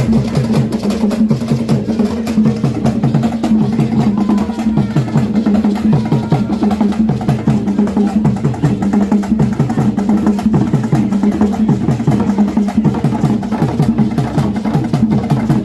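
Music with fast, steady percussion over a repeating low bass figure.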